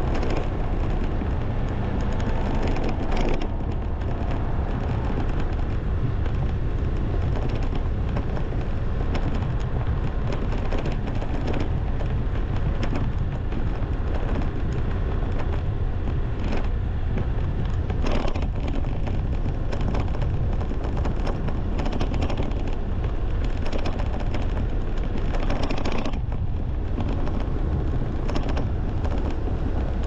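Wind buffeting the microphone over a steady low rumble of vehicle travel, with rapid crackling pops throughout.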